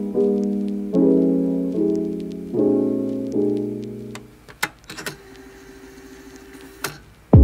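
Background piano music, a run of notes each dying away, that thins out about four seconds in to a quiet stretch broken by a few sharp clicks, then starts again near the end.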